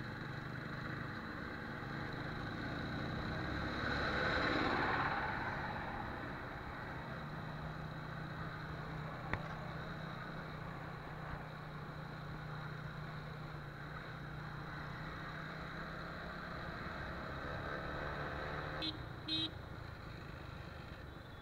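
TVS Apache RTR 180 motorcycle's single-cylinder engine running at a steady cruise under wind and road noise, with a brief swell of noise about four seconds in and two short beeps near the end.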